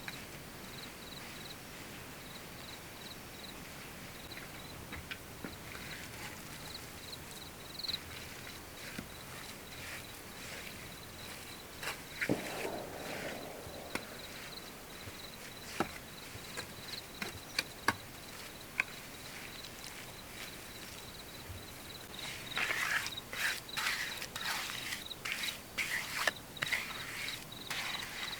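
Insects, crickets by their sound, chirping in a steady pulsing trill, with scattered clicks and knocks; over the last few seconds louder bouts of rustling, as of handled dry material, rise above them.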